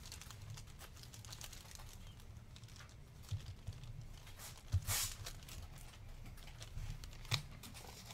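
Trading cards in plastic sleeves being handled, with faint clicks and light plastic rustling. A short, louder rustle comes about five seconds in and a sharp click near the end.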